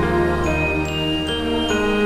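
Instrumental background music: held low notes and bass, with higher notes coming in one after another.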